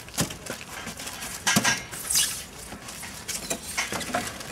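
Scattered knocks and clinks, about five over a few seconds, from hand work on a building site: materials and tools being handled.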